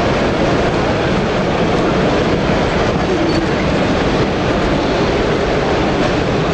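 Steady hubbub of a crowded exhibition hall, with a model train running along a layout's track.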